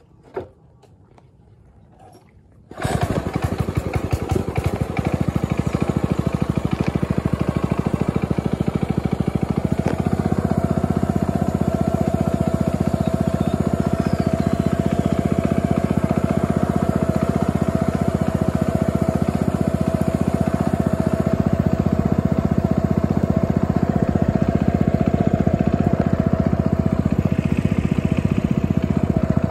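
Small engine on a wooden boat running steadily, starting abruptly about three seconds in after a quiet opening.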